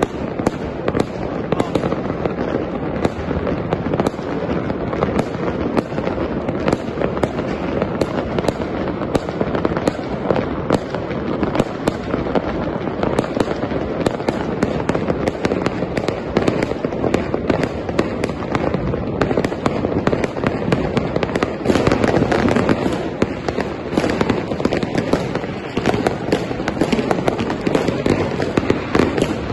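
Aerial fireworks going off continuously: a dense run of bangs and crackling from many bursts at once, swelling louder for a few seconds about three-quarters of the way in.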